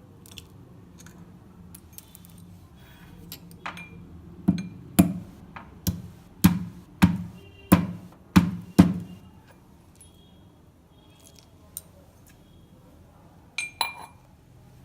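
Pestle pounding whole black cardamom, cloves and black peppercorns in a mortar to crack them lightly. There are about eight sharp knocks, roughly half a second apart, after a few light taps, and then a couple of clinks near the end.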